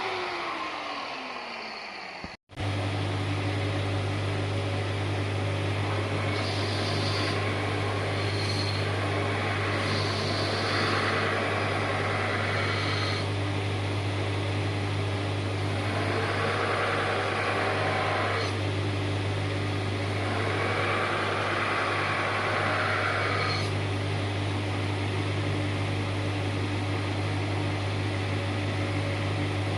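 An electric power tool's motor winds down with a falling pitch, then after a sudden cut a motor runs with a steady low hum. Four spells of abrasive grinding on metal come and go over it, typical of rust being ground or wire-brushed off a steel tool.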